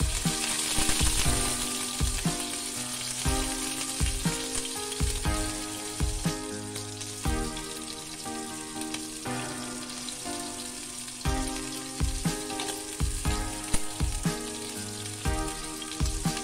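Prawns searing in hot oil in a stainless wok: a steady sizzle, strongest in the first couple of seconds after they go in. Background music with a regular beat plays underneath.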